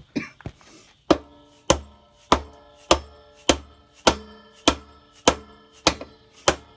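A mallet striking the end of a motorcycle's rear axle to drive it through the swingarm and wheel hub. A few light taps at first, then about ten hard, evenly spaced blows, just under two a second. Each blow leaves the metal axle ringing.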